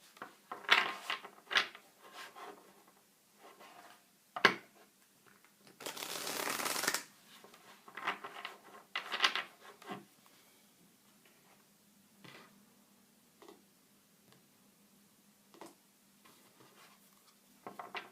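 Tarot cards being shuffled by hand: short bursts of cards rustling and slapping together, a sharp tap about four and a half seconds in and a longer rush of shuffling about six seconds in. After about ten seconds only a few soft card taps.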